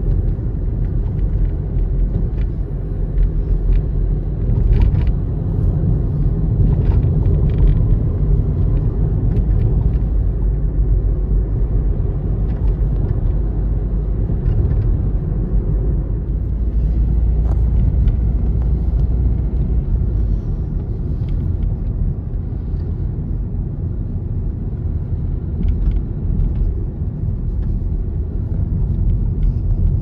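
Steady low rumble of engine and road noise inside a moving car's cabin, with a few faint light ticks.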